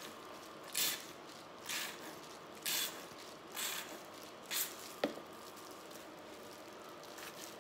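Plastic hair-dye applicator bottle shaken in gloved hands: five short swishes about a second apart, then a single sharp click.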